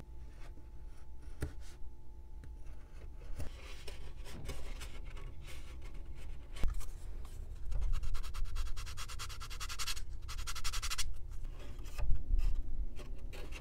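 Light scratching and rubbing of a thin balsa rib-cap strip being slid and pressed by hand along a balsa wing rib, with a denser stretch of fine, rapid scratching a little past the middle.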